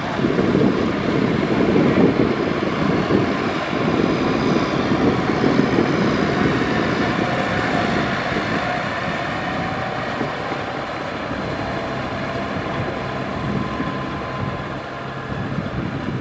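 Diesel engine of heavy farm machinery running steadily, louder for the first several seconds and then easing a little.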